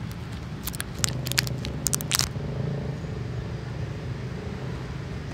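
Sharp plastic clicks and crackles from a toy capsule being handled and pried at, clustered between about one and two seconds in, over a steady low engine hum.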